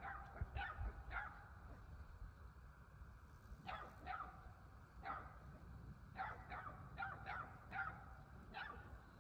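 A dog barking faintly: a dozen or so short, sharp barks in loose groups, over a low background rumble.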